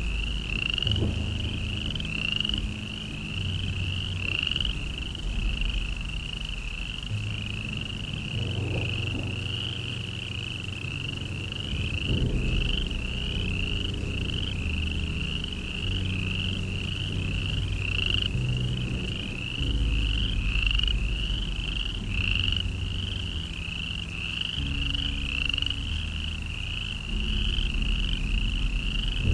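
An animal's chirping call repeated steadily, about two chirps a second, over a low hum whose pitch shifts every few seconds.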